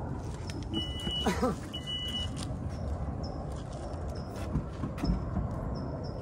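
Steady low rumble of a motor vehicle, with two high electronic beeps about a second apart near the start and faint short high chirps repeating through the rest.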